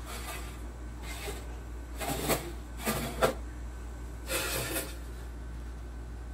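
Handling noises from a steel smoker: several short scraping and rubbing sounds as the grates and lid are moved, with a sharp knock about three seconds in, over a steady low hum.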